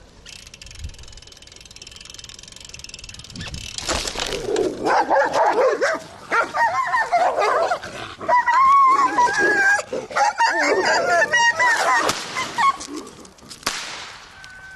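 Several dogs fighting, with loud yelping and barking from about four seconds in until near the end. Near the end comes a sharp bang from a noise pistol fired to scare the attacking dogs off.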